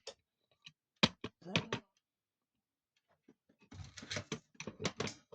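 Knocks and clicks of a camera being picked up and turned around, then a spell of close rustling and clattering handling noise near the end.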